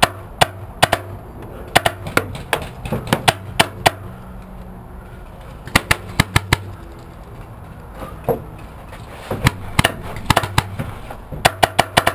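Paintball markers firing: scattered single shots and quick strings of several shots, with the densest strings about six seconds in, around ten seconds, and near the end.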